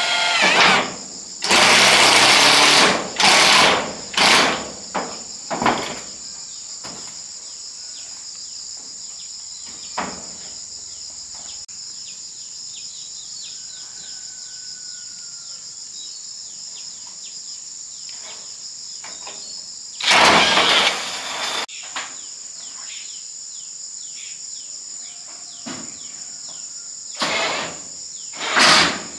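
A power drill running in short bursts of a second or two, several near the start, one about two-thirds through and one near the end, as corrugated iron roofing is fixed. A steady high-pitched drone of insects runs underneath throughout.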